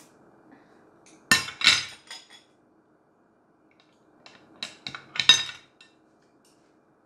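Metal seafood cracker and pick cracking and clicking against rock lobster shell: two sharp cracks just over a second in with a few smaller clicks after, then a quick run of four or five clicks around five seconds in.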